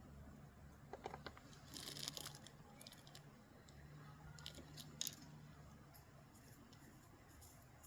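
Faint handling sounds of sand and small rocks: a few light clicks and a brief gritty rustle about two seconds in.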